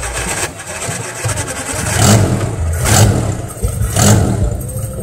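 A vehicle engine running and being revved in short bursts about once a second, in the second half.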